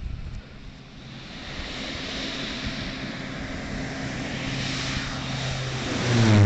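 Air Tractor AT-502 crop duster's turboprop engine and propeller drone approaching and growing steadily louder, then passing low overhead near the end with the pitch dropping.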